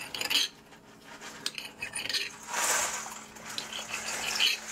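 Kitchen knife cutting marinated duck breast on a cutting board: a few short knocks and scrapes of the blade against the board as the meat is sliced and pushed aside.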